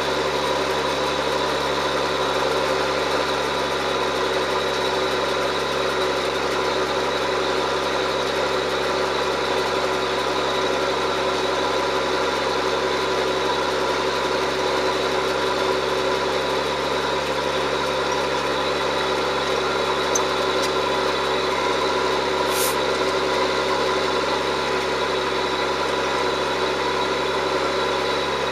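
John Deere 7710 tractor's six-cylinder turbo-diesel engine running steadily at constant speed while pulling a plough, with one brief sharp tick about three quarters of the way through.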